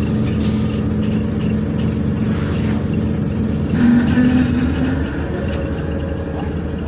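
City bus engine running, heard from inside the passenger cabin, a steady low hum that swells briefly about four seconds in.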